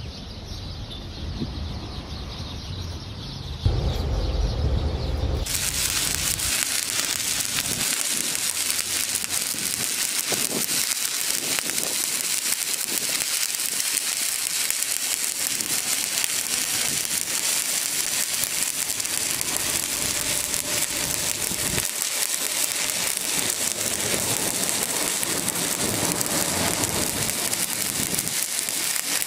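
Stick (shielded metal arc) welding arc on steel plate, a steady dense crackle like frying bacon that starts about four seconds in and runs evenly as the electrode burns along the joint.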